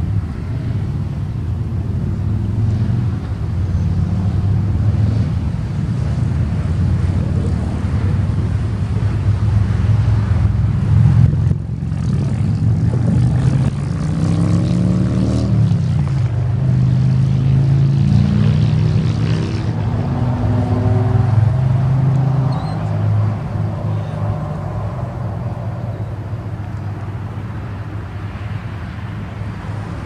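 Federal Sign & Signal Model 7 electromechanical siren, installed 1954, winding down slowly after a full alert: a low, wavering drone. About halfway through, a brief sweep of higher tones rises and falls over it.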